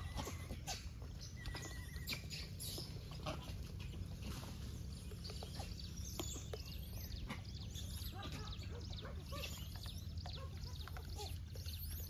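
Outdoor animal ambience: scattered short bird calls and many small clicks and rustles, over a steady low rumble.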